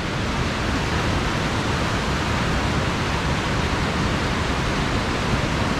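Waterfall in powerful snowmelt flow, a steady rush of falling water heard from the top of the falls.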